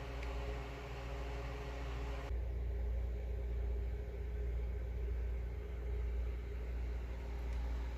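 Steady low machine hum with a faint hiss above it; the hiss drops away about two seconds in, leaving the hum.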